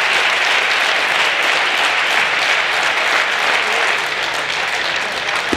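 Spectators applauding steadily, easing off slightly in the last second or so, with a single sharp knock right at the end.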